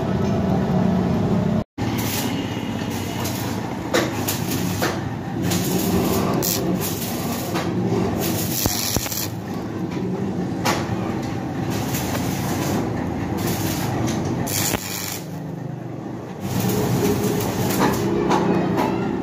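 Metal lathe running with a steady mechanical rumble, with irregular clicks and clatter throughout.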